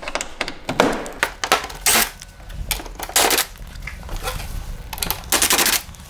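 A power screwdriver rattling in several short bursts as it backs screws out of an air conditioner's casing, with small clicks and knocks between the bursts.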